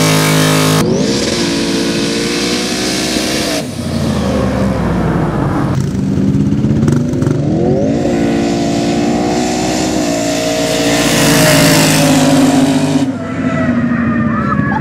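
Twin-turbocharged 540-cubic-inch big-block Chevy V8 of a sand drag truck running hard, its pitch climbing through the revs and dropping back several times. The sound jumps abruptly a few times between runs.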